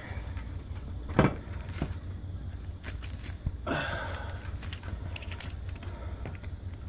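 Handling noise against a steel security cabinet: a few light clicks and knocks, the sharpest about a second in, with a steady low hum beneath.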